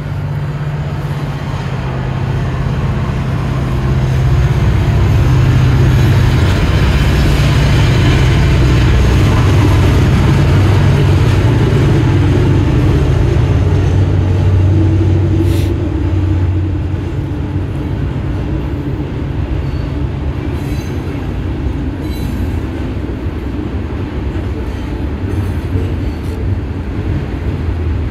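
A loud, low mechanical rumble with a shifting pitch, building over the first few seconds and easing off a little about sixteen seconds in.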